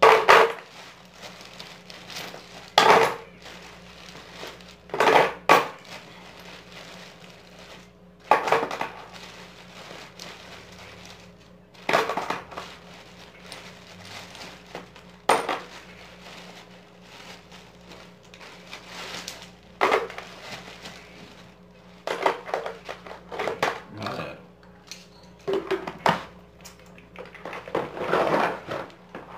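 Small hard metal objects clinking and clattering as fishing gear is handled in and around a plastic bag, in about ten short bursts a few seconds apart.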